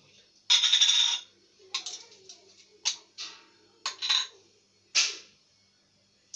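Metal jar lids and glass jars knocking and clinking as they are handled on a kitchen counter: about half a dozen sharp knocks, after a louder rattling scrape lasting most of a second about half a second in.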